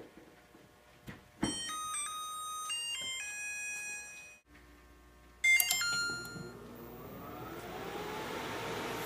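LG microwave's piezo beeper playing its power-up tune, a quick run of stepped electronic tones, just after a click about a second and a half in. A second short burst of beeps comes about five and a half seconds in, followed by a hum that rises in pitch and then holds steady.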